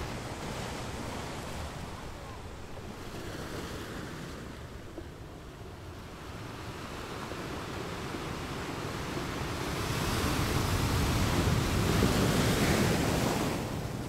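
Ocean surf washing onto a beach, a steady rush of waves that swells louder about two-thirds of the way through and drops away again just before the end.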